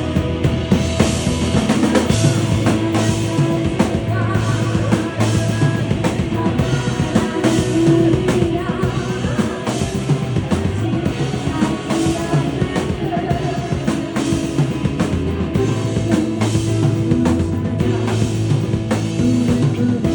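Live rock band playing: drum kit with steady cymbal hits, bass and guitars, with some singing, as heard from the audience.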